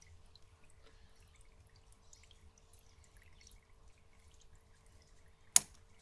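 Aquascaping scissors snip once through an old plant leaf stem, a single sharp click about five and a half seconds in. Underneath are faint scattered water drips and a faint steady hum.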